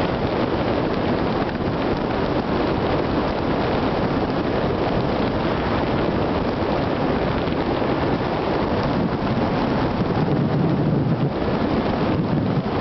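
Steady heavy wind rush buffeting the microphone of a camera mounted above a Suzuki Gladius 400 motorcycle's windscreen at road speed, with the bike's engine running underneath.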